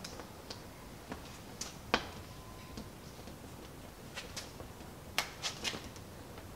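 Fingernails pressing a plastic trim insert into a VW split-screen van's metal beltline trim: light clicks and taps at irregular intervals, several close together in the last couple of seconds.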